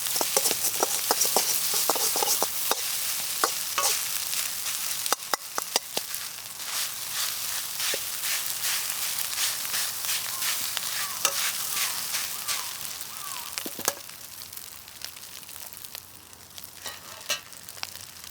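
Fried rice sizzling in a hot wok while a spatula stirs and scrapes it, with many quick clicks of metal on the pan. The sizzle and scraping die down over the last few seconds.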